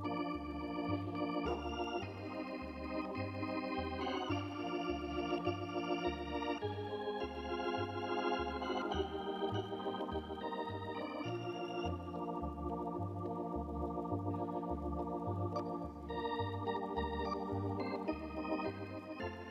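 Organ music: sustained chords that change every second or so over a steady, bouncing bass beat.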